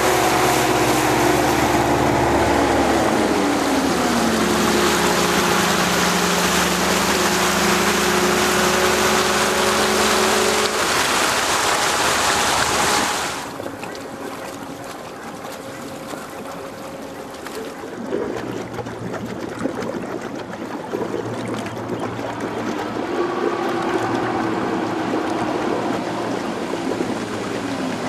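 Electric speedboat An Stradag running at speed on Cedric Lynch's motors: a motor whine that falls in pitch early on, over a loud rush of spray and wind. About halfway it cuts suddenly to a much quieter low hum, and a whine rises and falls again near the end.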